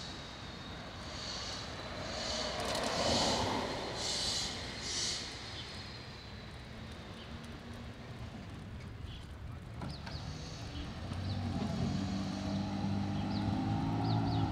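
Street traffic noise, with a motor vehicle's engine running and its low hum swelling louder in the last few seconds.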